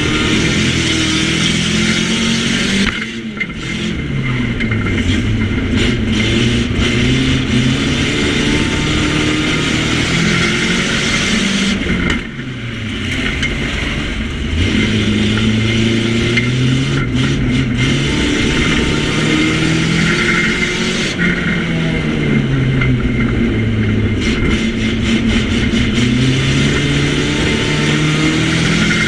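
Nissan Micra banger's petrol engine heard from inside the stripped cabin, revs repeatedly rising and falling as the driver accelerates and lifts. The engine briefly drops away about three seconds in and again about twelve seconds in. Short knocks and rattles from the bare bodywork come through at intervals.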